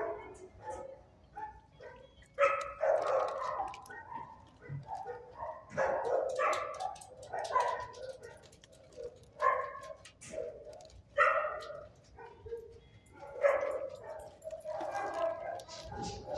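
Shelter dogs barking, a bark or a short run of barks every two or three seconds.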